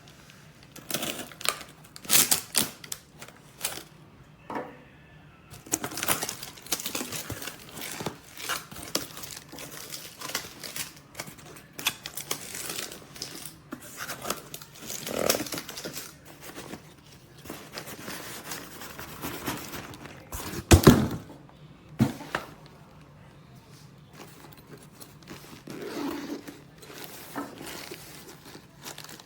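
Plastic packaging crinkling and rustling as tools and accessories are handled, with irregular clicks and knocks and one loud knock about two-thirds of the way through.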